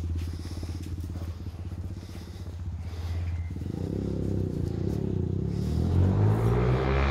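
A motor vehicle's engine running and passing by, growing louder over the second half and loudest near the end before it falls away.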